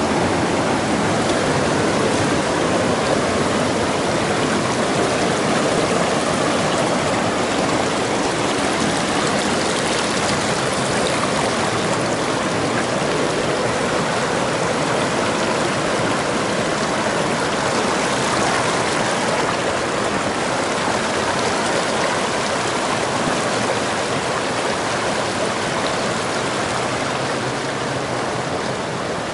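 Brook rushing over and between boulders in a rocky stream bed: a steady, loud wash of water that eases slightly near the end.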